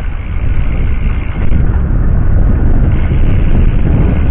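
Wind buffeting the microphone of an action camera on a moving bicycle: a loud, steady low rumble.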